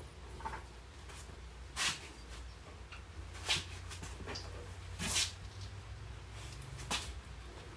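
Four short, sharp knocks about a second and a half apart, from work on a car chassis, over a steady low hum.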